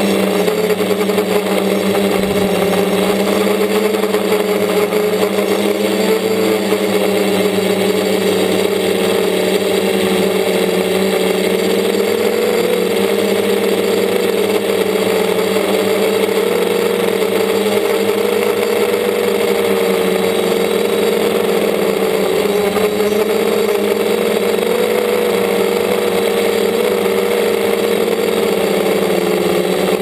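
DJI Flamewheel F450 quadcopter's brushless motors and propellers droning steadily, heard from the camera on board, the pitch wavering slightly as the throttle changes.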